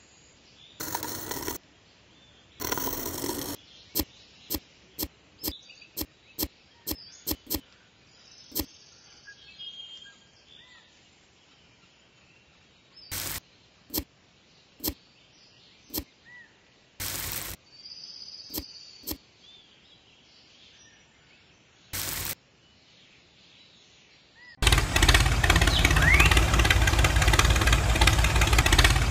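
A miniature shovel scrapes and taps in damp sand: a few half-second scrapes, then a run of sharp clicks and knocks with gaps between. About 25 seconds in, a loud steady engine running sound starts as the model tractor pulls away.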